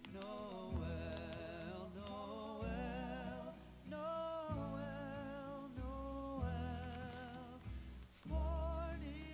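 Background music: a song with a singing voice, its melody wavering with vibrato over steady bass notes.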